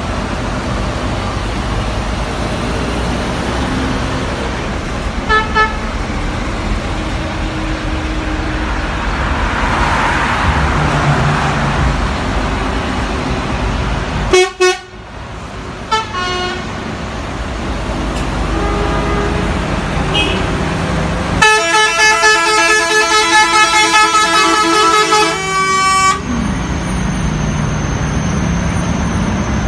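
A convoy of tour coaches drives past with steady engine and tyre noise, their horns honking: a short toot about five seconds in, loud blasts around the middle, and a long run of horn notes at changing pitches lasting about five seconds.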